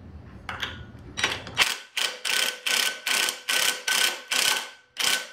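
Cordless impact wrench zapping the flywheel nut tight on a mini bike engine's crankshaft: a soft spin-up, then about ten short hammering bursts in quick succession over a faint steady whine.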